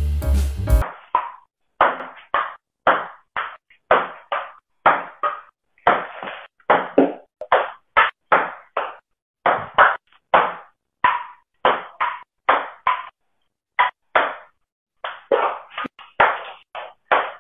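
Table tennis ball knocking back and forth in a steady rally, bouncing on the table and being hit back, about two sharp clacks a second.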